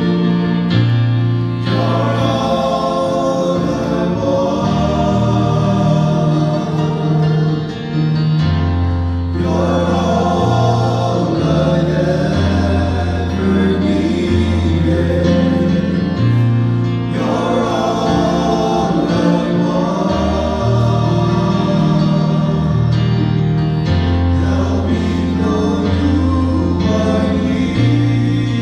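Three men singing a gospel worship song in harmony through microphones, over a steady accompaniment of long held low notes that change every second or two.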